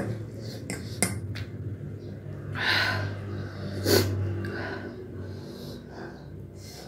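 Eating spicy noodles: a metal fork and spoon clink against the ceramic plate twice near the start, then two short sharp breaths or sniffs, with noodles slurped in, over a low steady hum.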